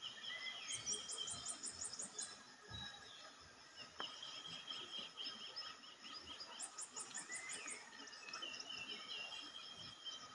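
Wild birds singing and chirping in tropical forest: twice a quick run of high, evenly spaced notes, about six a second, with lower chirps and calls between. A single faint click about four seconds in.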